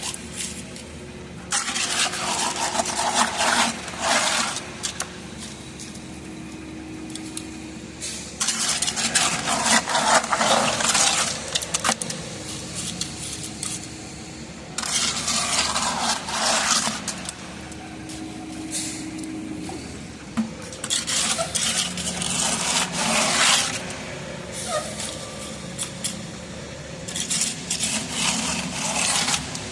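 A hand tool scraping across wet concrete in long strokes, five in all, each two to three seconds, about every six seconds. A steady engine drone runs underneath.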